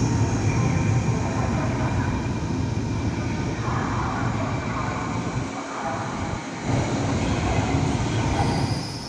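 A CRH380B high-speed electric multiple-unit train rolling away along the platform: a steady rumble of wheels on rail with a faint high whine, slowly growing quieter as it recedes.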